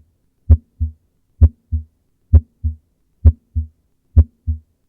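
Normal heart sounds in a steady lub-dub rhythm: the S1 thud of the atrioventricular valves closing, then the softer S2 of the semilunar valves closing, a single unsplit sound each. Five beats at about 65 a minute.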